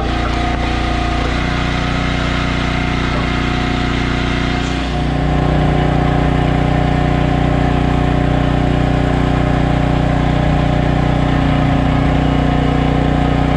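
Small gasoline engine of a log splitter running steadily. About five seconds in it settles into a lower, louder tone.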